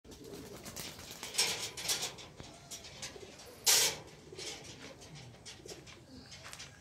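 Birds calling in the garden over footsteps and rustling on a dirt path, with one short loud rustle a little past halfway.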